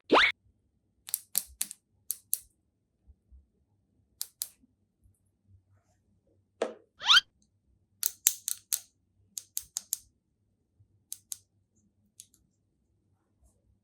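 Short crisp clicks and crackles of doll packaging being handled and opened, with a quick rising bloop sound effect at the start and again about seven seconds in.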